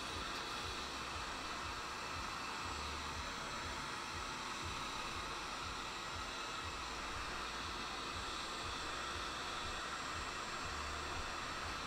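Handheld heat gun running, its fan blowing a steady hiss while it heats wood-burning gel paste to scorch the wood.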